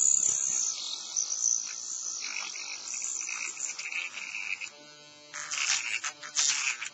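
Small rotary cutting disc running and scoring the plastic seam of a laptop battery pack, a high hissing whine that varies as the disc bites. It eases off about five seconds in, then cuts in again in short bursts near the end.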